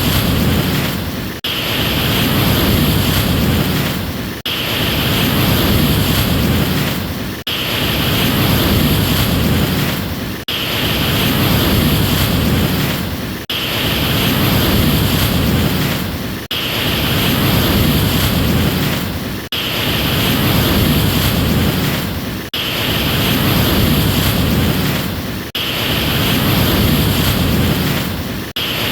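Ocean surf: a wash of waves that swells and then cuts off sharply about every three seconds, the same short stretch repeating over and over like a loop.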